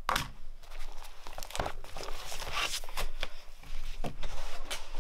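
Irregular crinkling and crackling rustle, like paper or plastic being crumpled, with many sharp crackles through it.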